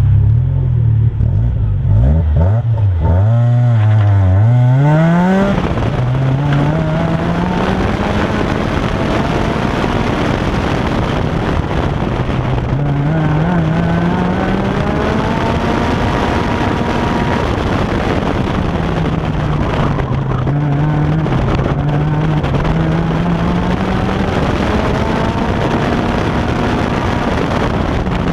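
A car's engine driven hard on an autocross course. The revs bounce quickly up and down in the first few seconds, then rise and fall with acceleration and braking. The recording is loud and distorted.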